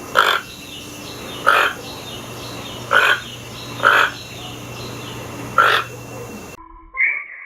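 An animal calling: five short, harsh calls at a fairly even pace, roughly one every one and a half seconds, then a sudden cut to a different, drawn-out high sound near the end.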